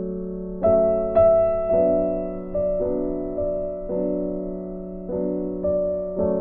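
Background music: gentle piano chords struck every half second to a second and left to ring.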